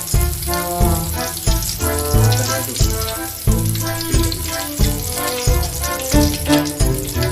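Background music with a steady bass beat, about three beats every two seconds, over the continuous hiss of food frying in hot oil.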